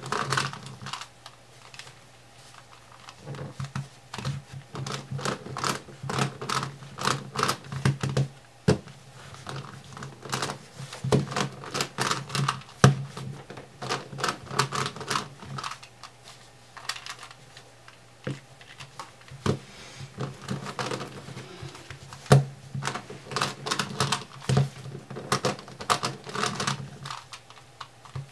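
Rex Cube, a corner-turning plastic twisty puzzle, clicking and clacking as its corners are turned fast, in bursts of rapid clicks with brief pauses between them.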